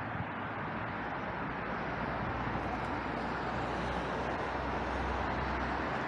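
Distant road traffic: a steady hiss with a low vehicle rumble that swells from about two seconds in.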